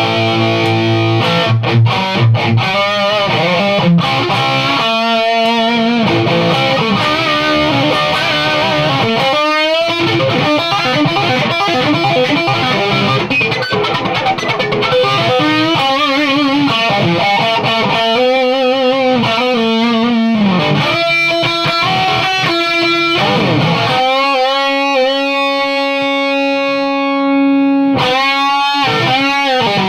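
Distorted electric guitar played through a Crate Vintage 60 amp rebuilt as a high-gain Splawn/Soldano-style circuit. It plays lead lines, with wide vibrato on held notes.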